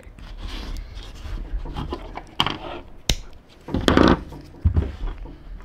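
Small plastic scraping and clicking as a pick pries at the open car key fob, working the old battery out, with a sharp click about three seconds in and a louder rasp about a second later.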